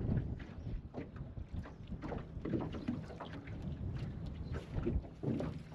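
Wind buffeting the microphone, with choppy water lapping and slapping irregularly against the aluminum boat's hull.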